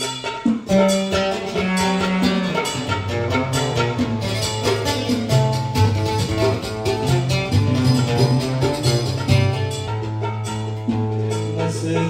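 Instrumental music led by a plucked string instrument playing quick repeated notes over a sustained bass line that moves every second or so.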